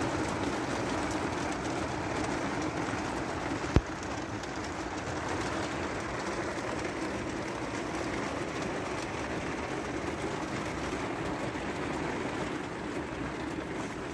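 Rain pattering steadily on a camper van's insulated metal roof, heard from inside the van, with one sharp tap about four seconds in.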